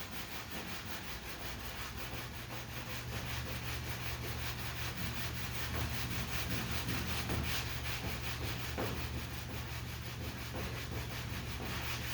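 Sandpaper sanding lacquer primer over a body-filler dent repair, a continuous scratchy rasp, with a steady low hum underneath and a couple of faint clicks partway through.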